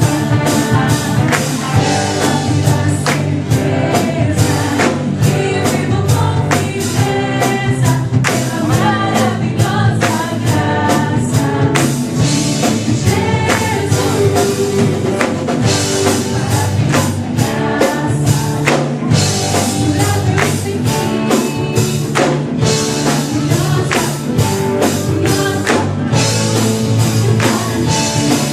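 Gospel band music: voices singing over instruments, with a drum beat keeping a steady rhythm.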